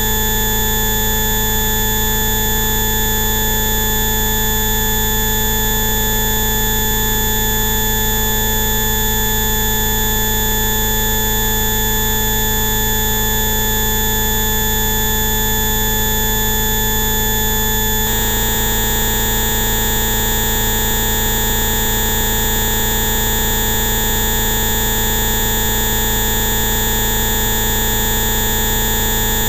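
Electronic 'Rife frequency' bioresonance tones: many steady synthesized pitches sounding together as one unchanging drone. About eighteen seconds in, the set of tones switches abruptly to a different, brighter combination.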